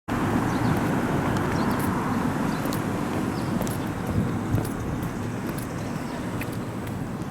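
Outdoor ambient noise: a steady low rumble, like distant road traffic, with scattered light clicks, starting abruptly.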